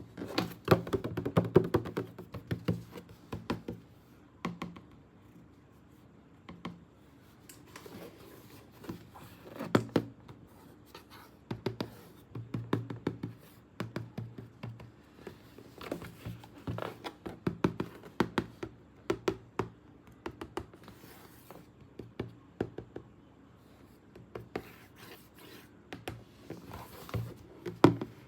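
Hands handling a plastic toy and its packaging: irregular clicks, taps and rustles in bursts with short pauses between.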